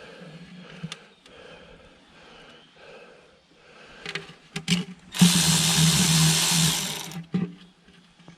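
A power tool runs in one steady burst of about two seconds, after a few light clicks and knocks of tool handling.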